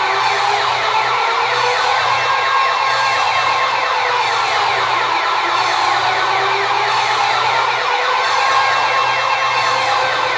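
Loud electronic alarm sound effect: a siren-like wail that sounds without a break, with fast warbling sweeps laid over slow rises and falls in pitch.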